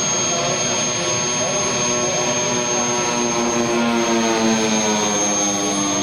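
The twin turboprop engines of a radio-controlled FMA IA 58 Pucará model in flight: a steady high turbine whine over a propeller drone. The drone sinks slightly in pitch through the middle as the aircraft flies past, and is loudest about four seconds in.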